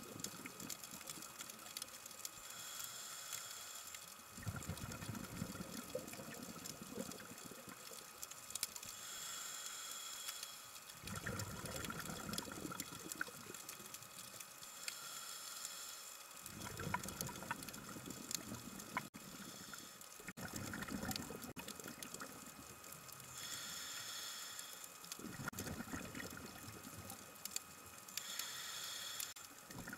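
Scuba diver breathing through a regulator underwater: a hissing inhalation with a faint whistle, then a low gurgling rush of exhaled bubbles, repeating about every five to six seconds, about five breaths in all.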